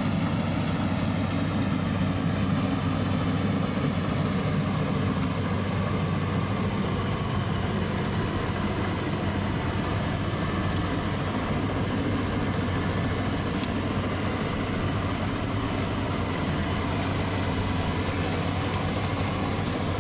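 Rice combine harvester's engine running steadily as the machine works the paddy, a continuous low hum with no breaks.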